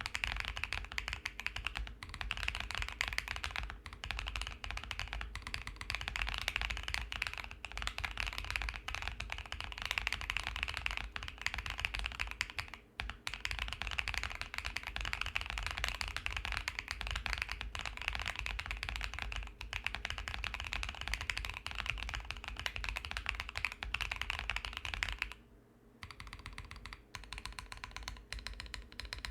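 Fast, continuous typing on a custom mechanical keyboard with lubed and tuned Holy Boba tactile switches, in a foam-dampened, tape-modded case. About 25 seconds in, the typing breaks off briefly and sparser single keystrokes follow: the stabilized keys being tested.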